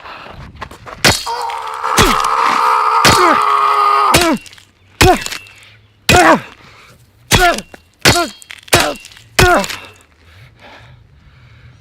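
A fight: a held, wailing cry, then a string of hard blows, each met by a short grunt or cry that drops in pitch.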